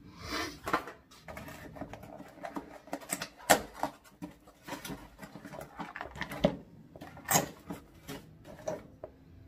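Cardboard box packaging being handled, rustling and scraping, with a series of sharp clicks and knocks as hard plastic Giffin Grip sliders are pulled out of their cardboard compartment.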